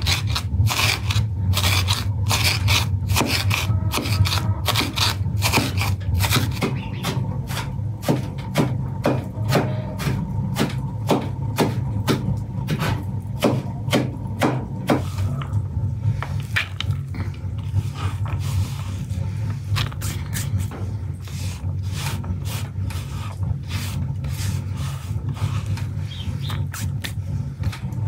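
Curved chopping knife rocking through diced onion on a wooden cutting board: a quick run of knocks and scrapes of the blade on the wood, more sparse in the second half.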